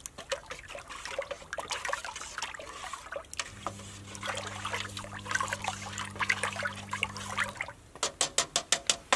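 Pine tar oil with brown linseed-oil paint added being stirred in a can: wet sloshing with irregular scrapes and clicks. A steady low hum runs for about four seconds in the middle, and a quick run of even taps comes near the end.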